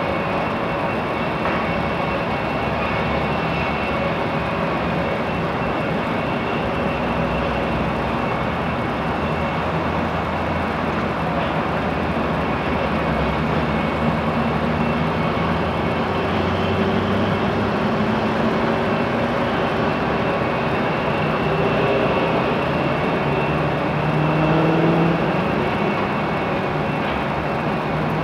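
Jet engines of an Airbus A319-132 on final approach to land: a steady rumble and hiss with faint whining tones. Near the end it grows a little louder and the tones rise in pitch.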